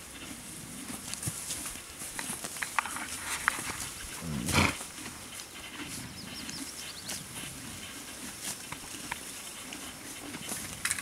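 Horses tearing and chewing grass close to the microphone: a steady run of crisp rips and crunches. About four and a half seconds in, one short, louder snort from a horse.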